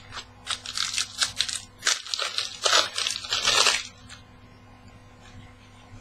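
Foil wrapper of a trading-card pack crinkling in a quick run of crackles as the pack is torn open and handled, dying away about four seconds in.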